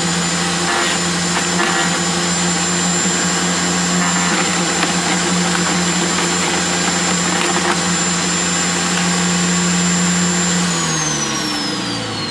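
Sterwins 2500 W electric garden shredder running steadily with a high whine while branches are fed into its hopper. About eleven seconds in it is switched off, and the motor and cutting disc wind down with a falling whine.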